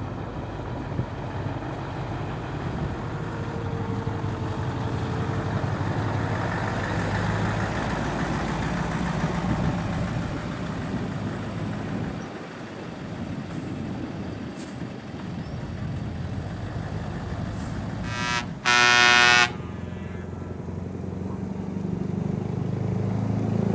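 Heavy truck engines running as trucks move past, with one loud truck air-horn blast lasting about a second, about three-quarters of the way through.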